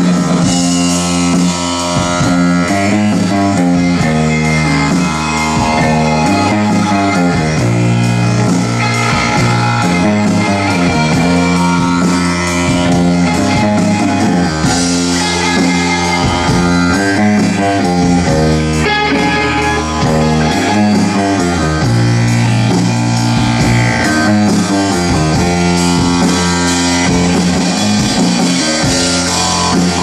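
Rock band playing a song live: electric bass, keyboard and drums with a steady beat.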